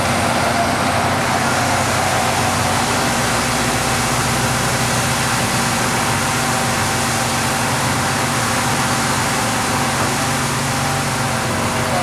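Ready-mix concrete truck's diesel engine running steadily to turn the mixer drum as it discharges concrete down the chute into a power wheelbarrow.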